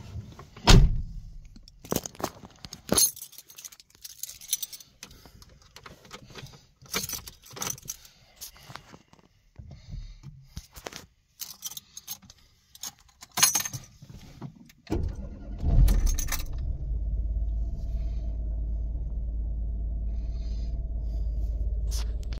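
Keys jangling with clicks and knocks for the first fifteen seconds, then, about fifteen seconds in, a Ford car's engine starts and settles into a steady idle, heard from inside the cabin.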